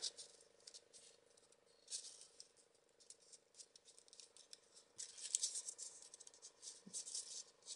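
Faint dry crackling and rustling of folded paper as a triangular 3D origami module is worked into place among the others, in a short spell about two seconds in and again from about five seconds on. A faint steady hum lies underneath.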